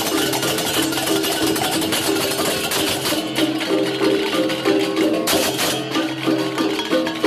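Balinese gamelan music of the kind played to an ogoh-ogoh parade: a fast, repeating metallic melody on tuned gongs over a held low gong tone, with dense percussion and a few louder cymbal crashes.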